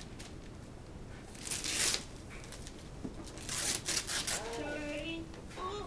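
Wrapping paper being torn and crumpled off a gift box, two short rustling bursts, with a voice starting near the end.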